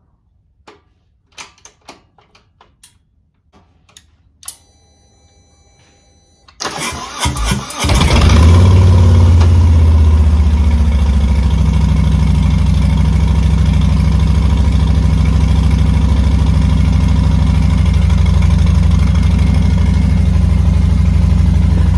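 A few faint clicks and a short faint whir, then about six and a half seconds in the Harley-Davidson Softail Street Bob's Twin Cam V-twin cranks on the starter, catches about a second later and settles into a steady, loud idle. It is a cold start, to warm the oil before draining it.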